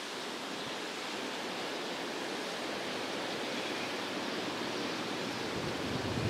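Steady outdoor background noise, an even hiss with no distinct events, with a low rumble rising near the end.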